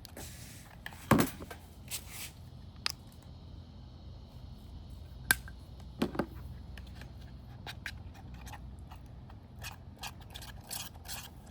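Slime being stirred with a mixing tool: irregular scrapes and sticky squishes, with short clicks and knocks of the tool against the container, as the mix of white glue and activator thickens and pulls off the sides.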